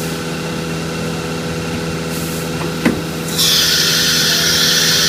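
CNC router running with a steady hum of several held tones. A sharp click comes a little under three seconds in, then a loud high hiss starts abruptly and holds as the spindle head lifts off the MDF and moves over to its tool-changer carousel.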